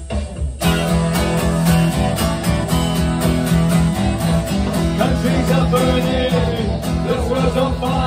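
A song with electric guitar over a steady beat. The music thins out briefly at the very start, then comes back in full.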